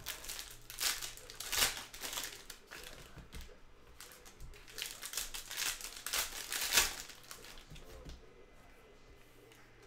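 Foil wrappers of Panini Donruss Soccer trading-card packs crinkling as they are handled and opened. The rustling comes in two spells, at the start and again about halfway through.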